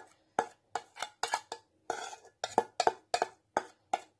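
A spoon scraping and knocking against the inside of a stainless steel saucepan, about three to four sharp, ringing strokes a second, as thick sauce is scraped out of the pan.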